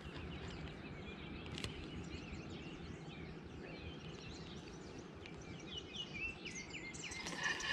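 Songbirds chirping and singing over a steady low outdoor rumble, with a louder, busier burst of bird calls near the end.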